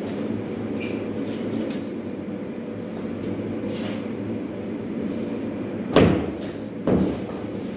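Drywall being sanded with a long-handled pole sander: scraping strokes of the sanding head over a steady machine hum, with two louder sweeping scrapes near the end.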